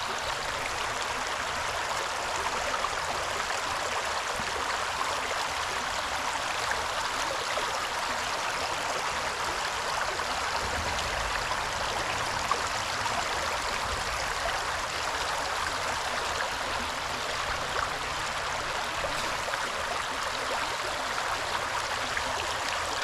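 Steady rush of running river water.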